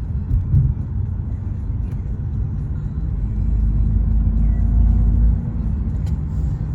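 Car engine and road rumble heard from inside the cabin while driving, growing louder from about three seconds in, then dropping back a little after five seconds.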